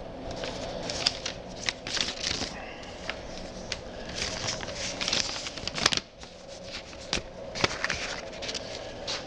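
Irregular rustling with sharp clicks and crackles close to the microphone, like fabric or objects being handled, over a steady room hum.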